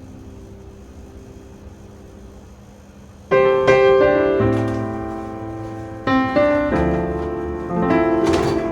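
Background piano music. It holds faint sustained tones at first, then loud piano chords come in about three seconds in, with new chords struck twice more.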